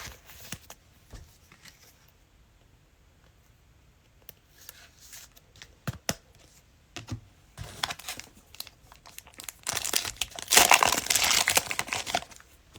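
Plastic cello wrapper of a trading card pack crinkling and tearing as it is opened, loudest in a long rustle near the end, after scattered light handling clicks and rustles.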